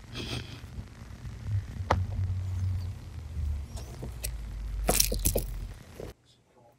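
A few sharp clicks and taps over a low rumble as a cat paws and mouths a small toy on carpet. The clicks cluster about five seconds in, and the sound stops abruptly near the end.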